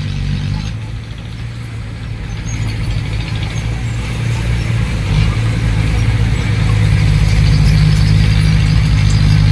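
Heavy diesel engine of a dump truck or bulldozer running steadily, growing louder over the first several seconds.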